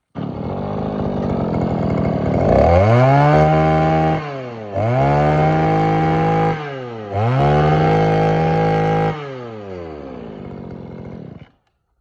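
Mitsubishi TL231 23cc two-stroke brush cutter engine starts at once and idles, then is revved up to high speed three times, each rev a rising whine held for about two seconds before dropping back. It settles to idle and stops abruptly near the end.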